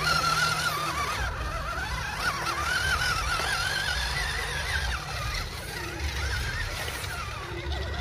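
Whine of the small electric motors and gearboxes of RC scale trucks crawling through shallow river water, the pitch wavering up and down with the throttle and growing fainter in the second half.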